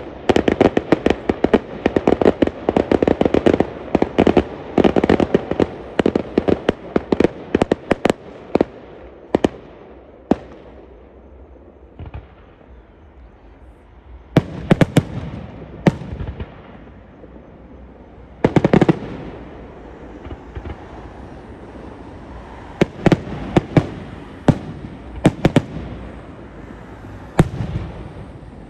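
Fireworks display: a rapid volley of cracking bangs for roughly the first ten seconds, thinning out to scattered bursts of bangs and crackle for the rest.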